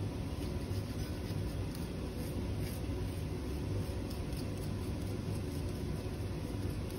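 Metal spatula scraping dried sand off filter paper: a few faint, short scratches over a steady low hum.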